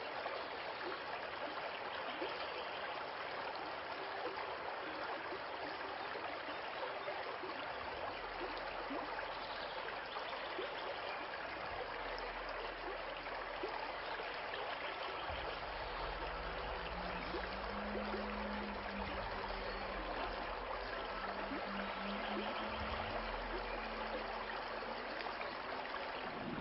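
Steady rushing, crackling noise of a sound-design effect, like a running stream or a roaring flare. A deep low rumble comes in about eight seconds in, and a low held drone tone joins about halfway through.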